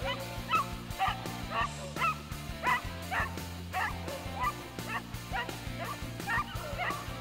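Rabbit-hunting hounds baying on a rabbit's trail, short repeated barks about two a second, over background music with a steady low bass line.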